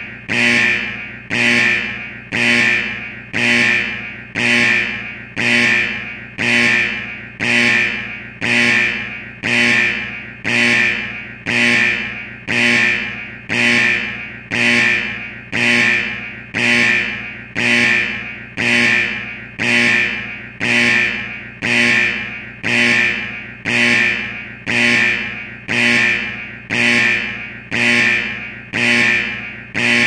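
Factory security alarm sounding like an old firehouse alarm: a loud pitched tone pulsing about once a second, each pulse starting sharply and fading away, repeating steadily.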